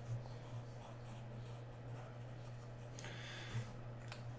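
Faint rustling and scratching of paper and cards being handled over a steady low electrical hum, with a brief louder rustle about three seconds in.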